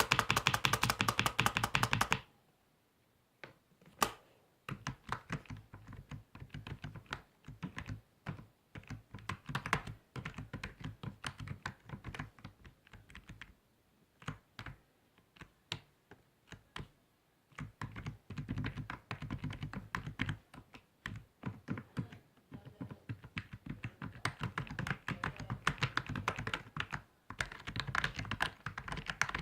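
Typing on a computer keyboard, with keystrokes clicking in quick runs and short pauses between them. A fast, loud burst of keys comes first, then a brief pause and a single sharp keystroke about four seconds in.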